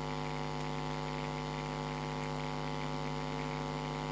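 Steady low electrical mains hum with a buzzy edge, unchanging in level and pitch.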